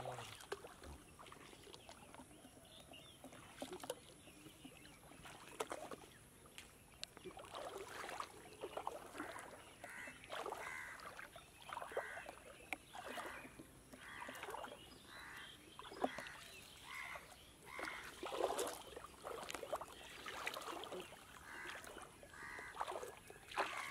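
Water dripping and splashing as a fine gill net is lifted and handled in shallow muddy water, with many small sharp splashes. From about ten seconds in, a run of short repeated calls, roughly one a second, sounds in the background.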